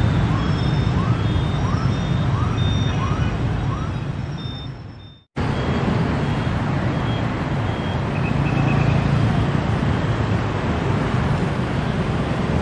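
Steady city street traffic of motorbikes and cars, with a run of short rising chirps in the first few seconds. The traffic fades out about five seconds in and starts again abruptly. There is a brief high beeping about eight seconds in.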